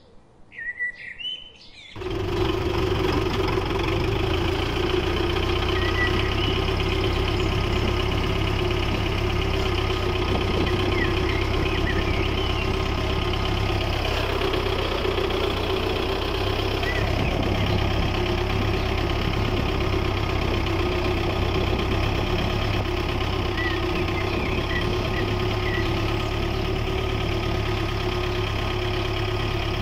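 Tractor engine running steadily at idle, a constant low rumble with a steady drone, starting abruptly about two seconds in. Faint bird chirps over it now and then.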